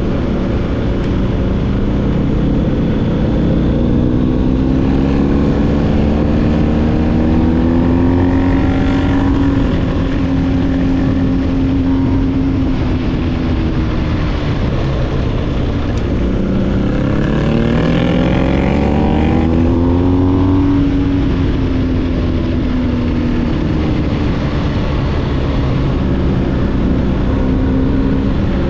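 BMW R1250GS boxer-twin engine through an SC-Project SC1-R GT exhaust, under way: the revs climb and hold, drop about halfway through as the bike slows, then climb again before easing off.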